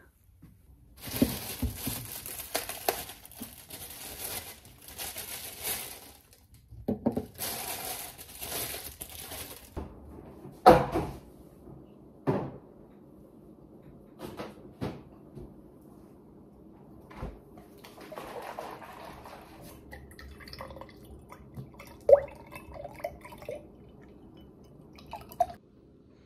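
Kitchen sounds: water running in two spells of several seconds, then sharp knocks and clinks of dishes, over a steady low hum in the second half.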